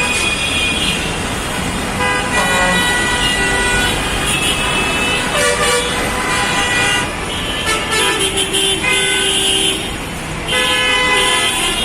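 Bus and vehicle horns honking almost without a break, several at different pitches overlapping, over the rumble of engines in jammed traffic.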